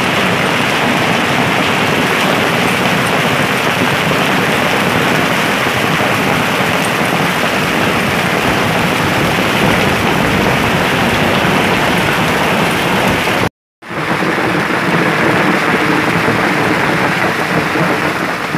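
Heavy hailstorm: hailstones and rain falling hard, a loud, dense, steady noise. It cuts out for a moment about thirteen seconds in.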